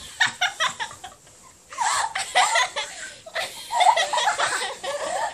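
Children laughing in quick bursts, with a short lull a little after one second before the laughter picks up again.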